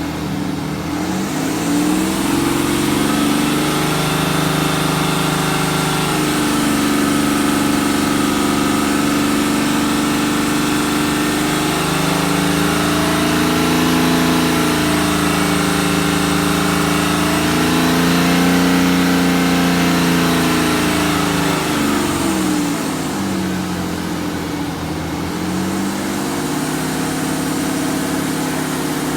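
BMW N57D30 3.0-litre straight-six diesel engine brought up from idle in the first couple of seconds, held at raised revs that waver slightly, then let back down to idle a few seconds before the end. At raised revs it has a misfire-like tapping that the owner cannot trace, with the timing chains, injectors and crankshaft pulley new and the noise unchanged with the accessory belt off.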